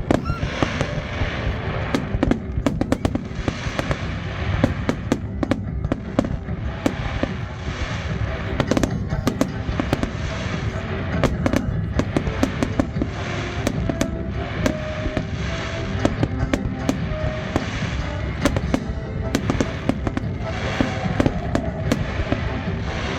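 Aerial fireworks display going off continuously, with many rapid bangs and crackles, and music playing underneath.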